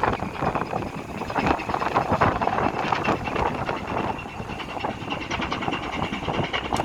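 The main diesel engine of a 498-ton sand-and-gravel carrier ship running as it comes into port, a loud, rapid knocking with a steady high whine through it. Strong wind buffets the microphone, making the level rise and fall.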